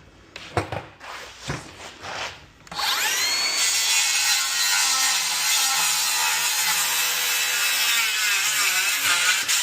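A few handling knocks and clicks, then a circular saw starts about three seconds in with a rising whine and cuts through wood, its pitch sagging under load near the end.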